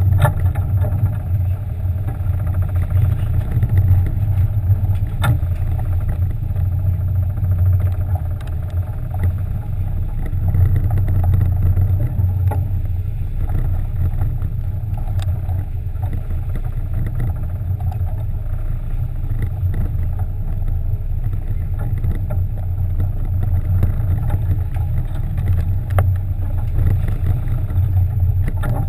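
Sport-fishing boat's engines running steadily, a loud low drone, with a few light knocks on the boat.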